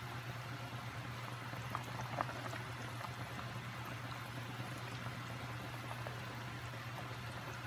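Sinigang broth bubbling at a simmer in an enamelled cast-iron pot, with a few light clicks about two seconds in as a wooden spoon stirs it. A steady low hum runs underneath.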